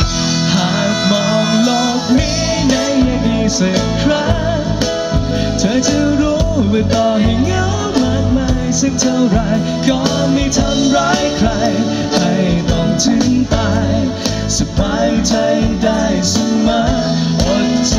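Live pop-rock band: a male lead singer singing through a microphone over electric bass, drums and guitar.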